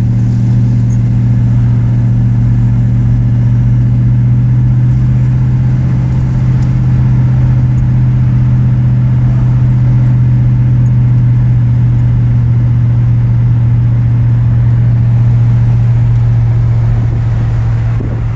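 1963 Chevrolet Impala running with a steady, unchanging low drone.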